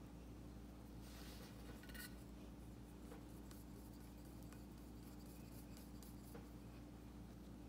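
Near silence: a steady low hum, with faint rubbing and a few light ticks from a porcelain tile being handled and brushed with paint.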